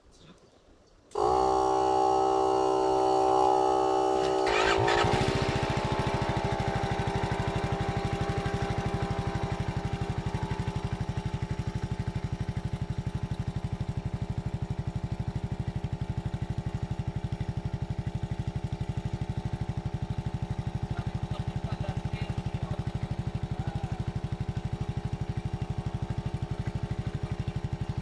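Portable air compressor switched on to inflate a freshly plugged ATV tyre: it starts suddenly with a steady whine, changes about five seconds in, then runs on with a steady fast pulsing.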